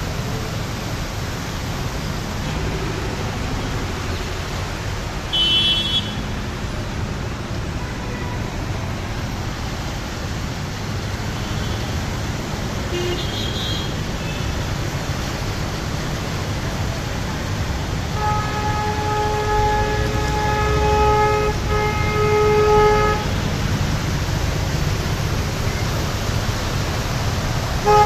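Steady rush of traffic and water as vehicles drive through a flooded street, with a vehicle horn sounding for about five seconds, in two or three long blasts, a little past the middle. Two short high beeps come earlier.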